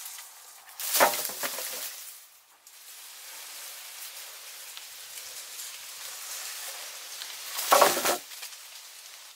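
Wooden poles dropped from the shoulder onto bare ground twice, each a heavy thud with a brief clatter, about a second in and again near the end. A steady high hiss runs underneath.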